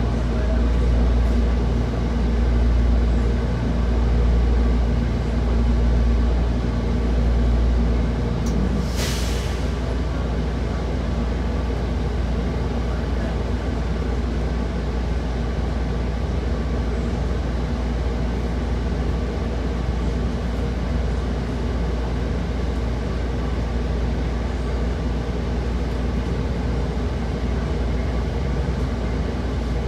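Interior running noise of a New Flyer XDE40 diesel-electric hybrid city bus: a steady low drone, with a pulsing rumble and a faint steady hum for the first eight seconds or so. About nine seconds in comes a short hiss of released air, the hum stops with it, and the drone runs on steadier.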